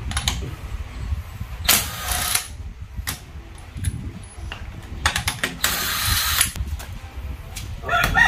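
Cordless impact wrench spinning lug nuts off a car's rear wheel in two short runs, the first about two seconds in and the second, about a second long, a little past the middle, with light metallic clicks of the nuts and socket between them.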